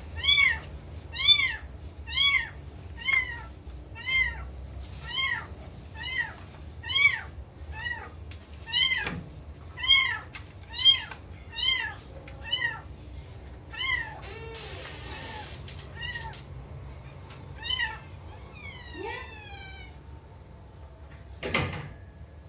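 A kitten meowing over and over, short high calls that rise and fall in pitch, about one a second, growing fainter after the first dozen. A single knock comes near the end.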